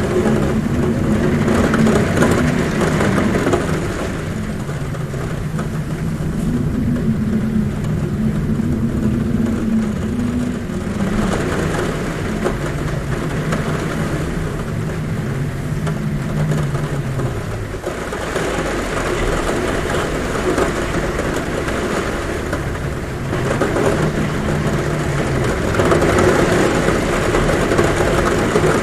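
Heavy rain on a roof with wind howling at a window: a steady rush of rain under a low moaning tone that wavers and slides in pitch. The sound swells louder for a few seconds near the start and again near the end.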